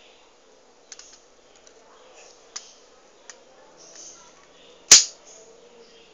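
Light plastic clicks from a Lego brick pistol being handled, then one loud, sharp snap about five seconds in.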